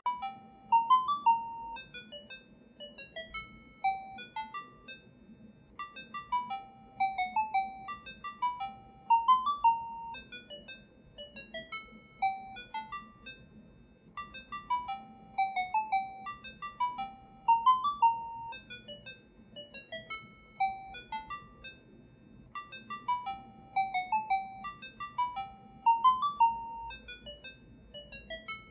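Music: a simple melody of short, high, clear notes, its phrase repeating about every eight seconds.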